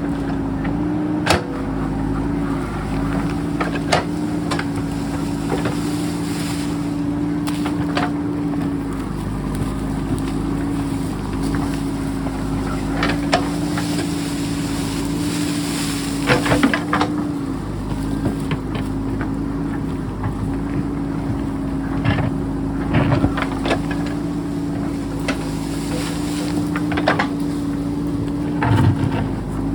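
JCB backhoe loader's diesel engine running steadily, its pitch sagging briefly a few times, with sharp knocks and clanks scattered throughout from digging in rock.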